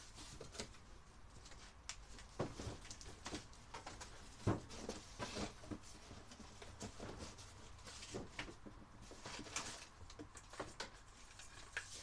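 Rummaging through cardboard boxes of clamp-on work lights: scattered rustles and light clicks as the fixtures and their metal reflectors are handled, with one louder knock about four and a half seconds in.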